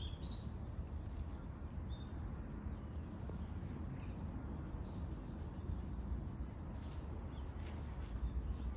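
Small birds chirping in the background: a few short high chirps early on and a quick run of them about five seconds in, over a steady low outdoor rumble.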